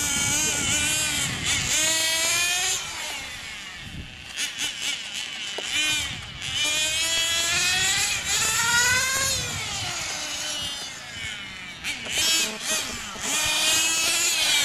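Radio-controlled racing motorcycle's motor buzzing at high revs, its pitch rising and falling over and over as it accelerates and slows through the corners.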